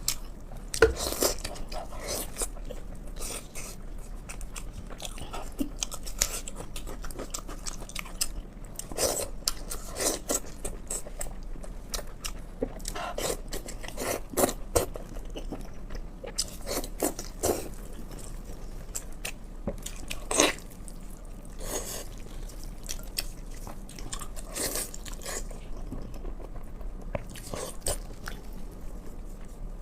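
A person eating pork on a close microphone: chewing and biting, with irregular smacks and clicks throughout. The loudest come about a second in and about twenty seconds in.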